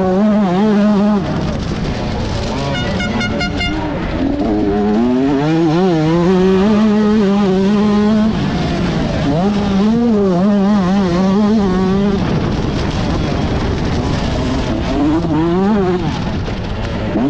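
125cc two-stroke motocross bike engine being ridden hard, its revs climbing and falling again and again with throttle and gear changes. The revs drop off sharply three times, near 8, 12 and 17 seconds in.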